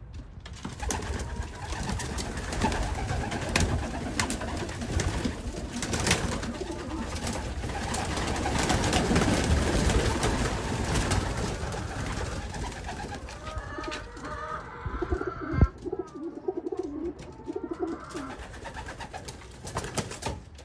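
Domestic pigeons in a wooden loft: a dense flutter and clatter of wings as birds take off and land for the first dozen seconds or so, then pigeons cooing in the last several seconds, with a single sharp knock partway through the cooing.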